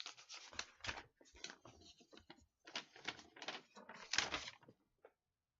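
Paper poster rustling and crinkling as it is handled, a quick irregular run of crackles, loudest about four seconds in, that stops about five seconds in.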